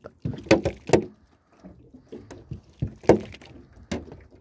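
About four sharp knocks and taps on an aluminium boat hull while a caught corvina is handled and unhooked; the loudest knock comes about three seconds in.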